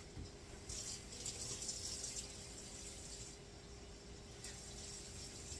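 Kitchen tap running water into a container for about two and a half seconds, then turned off.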